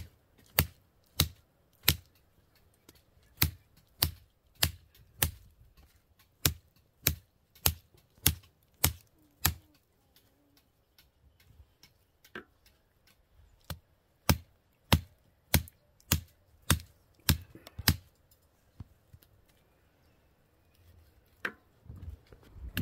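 Sharp knocks from blows struck at an even pace, about one and a half a second, in two runs with a pause of about four seconds between.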